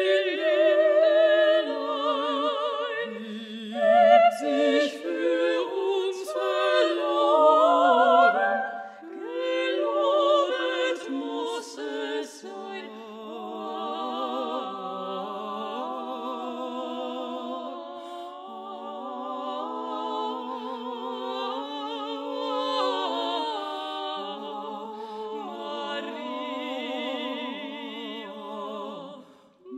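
Three female voices (soprano, mezzo-soprano and alto) singing an a cappella motet in close harmony, with vibrato. The singing is louder at first, then turns softer, with long held chords, from a little before the middle.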